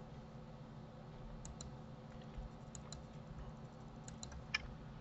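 Faint clicks of a computer keyboard and mouse, a few scattered presses, several in quick pairs, over a low steady hum.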